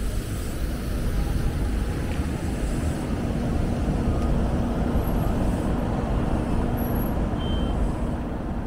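Steady low rumble of road traffic, with a faint engine hum held for a few seconds in the middle.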